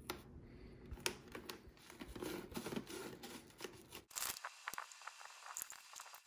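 Rustling and scraping of a motorcycle helmet's padded fabric liner being worked out of the shell by hand, with scattered sharp clicks. A low background hum stops abruptly about four seconds in.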